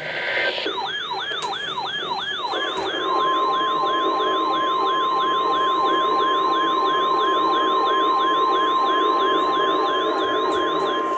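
A warbling electronic siren alarm, sweeping down in pitch about three times a second, starts about half a second in. About three seconds in, a steady single-pitch alert tone just above 1 kHz joins it: the 1050 Hz NOAA Weather Radio warning alarm tone that signals a warning message is about to be read.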